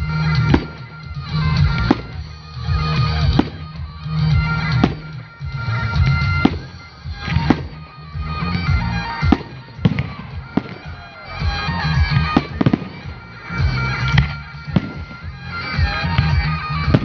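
Fireworks bursting in the air, a sharp bang about every second, over loud music with a sustained drone.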